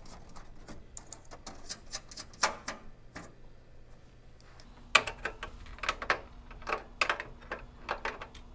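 Irregular light clicks and taps of hands handling wires and small hardware in an NCAT furnace's metal tray and frame, sparse at first and coming more often from about halfway through.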